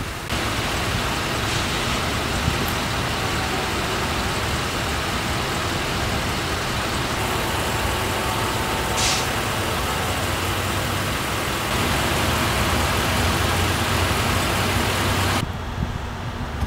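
Steady road noise of a moving car: tyre and engine noise with a low hum, heard from inside the vehicle. It grows a little louder for a few seconds, then drops suddenly near the end.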